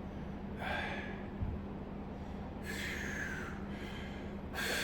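A man breathing hard through a set of barbell overhead presses: three forceful, noisy exhalations about two seconds apart. A short dull thump comes about a second and a half in.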